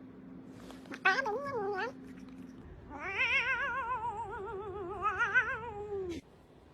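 A pet yowling twice with a fast wavering pitch: a short call about a second in, then a long drawn-out call of about three seconds that stops abruptly.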